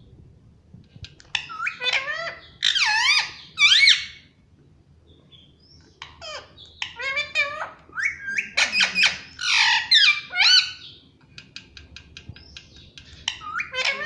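An Indian ringneck parrot calling in two loud bouts of high calls that sweep up and down in pitch, the second bout longer. Softer rapid ticks and chirps come between the bouts and near the end.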